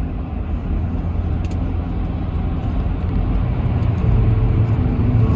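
Road and engine noise heard from inside a moving car's cabin: a steady low rumble of tyres and engine at highway speed.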